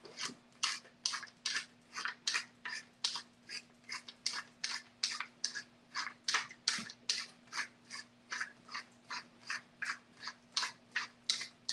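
Hand-twisted wooden pepper mill grinding peppercorns: a steady run of short grinding strokes, about two or three a second.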